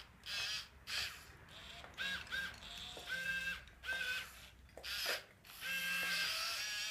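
Small electric motors and gearboxes of a motorized scale-model Komatsu PC1250 excavator whining in short start-stop bursts as the boom, arm and bucket move, with a few sharp clicks between. A longer whine runs near the end.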